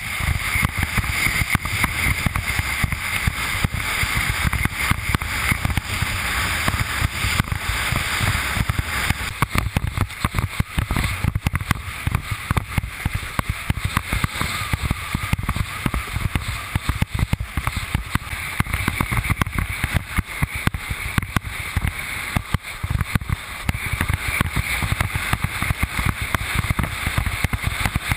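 Wind buffeting the camera microphone over the rush and splash of water along a windsurf board sailing at speed, with spray hissing off the hull.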